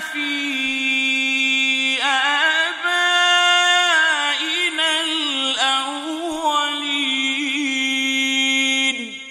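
Quranic recitation (murottal): a single voice chanting in long held melodic notes with ornamented turns, stopping just before the end.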